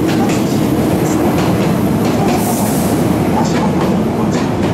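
Hankyu Kyoto Line electric train running past the platform, a steady heavy rumble with its wheels clicking unevenly over the rail joints and a short high hiss about two and a half seconds in.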